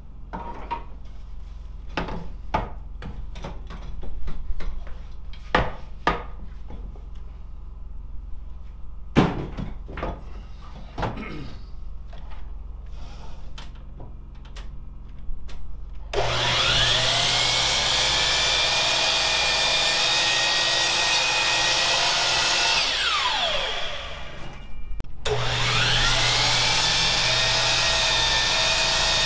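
Scattered knocks and taps of wood and tools being handled, then an electric power saw spins up about sixteen seconds in, runs steadily for about six seconds, winds down, and starts up again shortly after.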